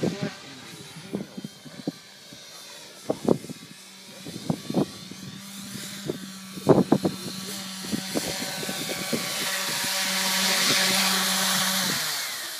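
Stingray 3D quadcopter flying in close and landing. Its rotors give a steady hum and a hiss that grows louder as it nears, then the hum stops about a second before the end as it touches down. Short knocks are scattered through.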